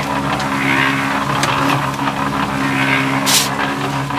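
A motor running steadily with a low hum, with a hiss above it that swells and fades about every two seconds. A short sharp scrape or clatter comes about three seconds in.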